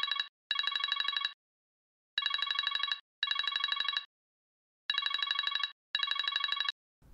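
Mobile phone ringing with a classic telephone-bell ringtone: trilled rings in pairs, ring-ring, pause, three pairs in all. The ringing stops just before the end as the call is answered.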